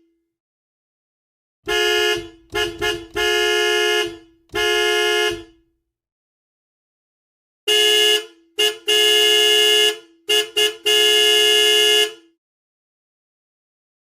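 Car horn honking in two bursts of steady-pitched blasts, each burst a mix of quick short toots and longer held honks, with silent gaps of about two seconds between the bursts.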